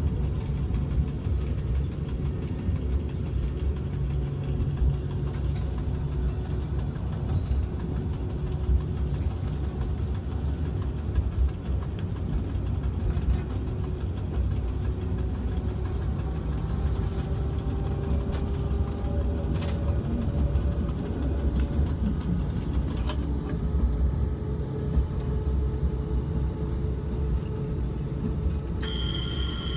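A train running along the track, heard from the cab: a steady low rumble of the engine and wheels on the rails, with an occasional click. A high, steady whine sets in near the end.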